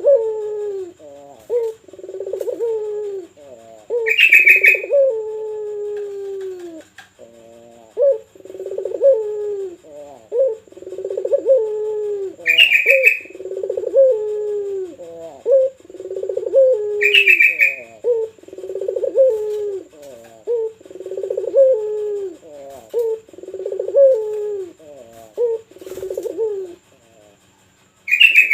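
Puter dove (Barbary dove) cooing over and over, each low coo ending in a falling note, about one every one to two seconds. A short, sharp, higher chirp cuts in four times.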